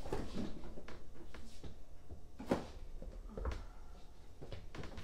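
Light knocks and clatter of kitchen utensils being handled while dry ingredients are measured out, with a sharper knock about two and a half seconds in and another about a second later.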